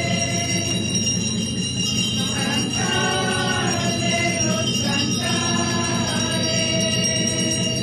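A hymn sung with music, with bells jingling steadily throughout; the singing voices stand out most in the middle.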